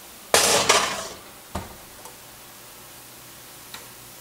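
A baking dish slid onto an oven rack with a loud, noisy scrape lasting under a second, then the oven door shut with a thump. A small click follows near the end.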